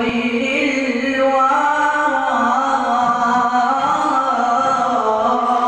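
A male voice singing an Islamic ibtihal (devotional supplication), drawing out long ornamented phrases over a steady, held low note.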